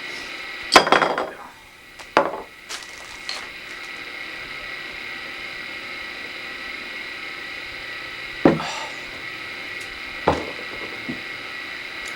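A few scattered knocks and handling thumps, the loudest about a second in, another just after two seconds, and two more late on, over a steady background hum with a high whine.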